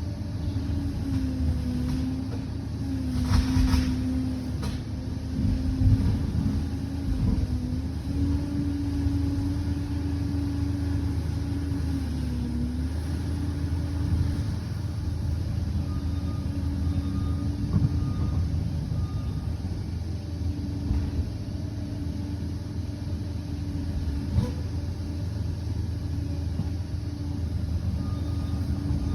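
Liebherr 746 crawler bulldozer working, its diesel engine running under load in a steady low drone whose pitch sags briefly several times as the load comes on. A few sharp knocks about three to six seconds in.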